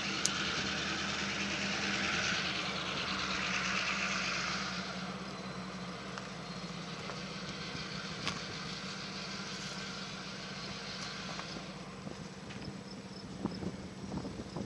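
Steady low engine hum from motor vehicles or machinery, with a louder rushing noise over the first five seconds that then fades away.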